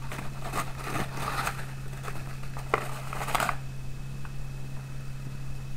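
Dry corn muffin mix shaken out of its container into a glass bowl: dry rustling and scraping with small clicks, stopping about three and a half seconds in. A steady low hum runs underneath.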